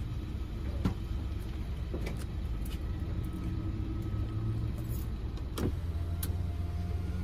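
Car engine idling, heard from inside the cabin as a steady low hum, with a few faint clicks over it.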